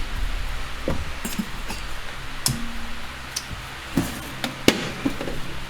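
A handful of sharp clicks and light knocks, spread out over several seconds, from hands and tools working around the underside of a car. A low steady hum lies beneath them.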